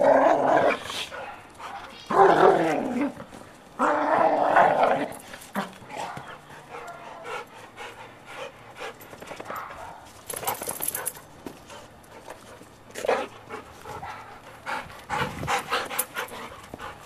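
Golden retrievers play-fighting, growling in three loud bouts over the first five seconds, then quieter with short sounds now and then.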